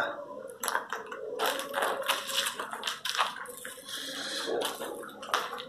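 Footsteps crunching on grit and dry leaves over a concrete walkway, a steady run of short crackly steps.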